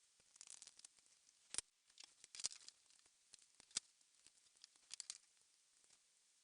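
Faint, irregular small clicks and brief rustling scrapes of laptop parts being handled during reassembly, with a few sharper taps about one and a half, two and a half and four seconds in.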